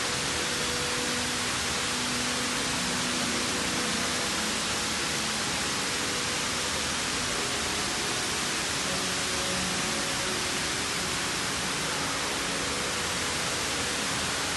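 Indoor cascading waterfall: a steady, even rush of falling water with no breaks. A few faint low tones sit underneath it.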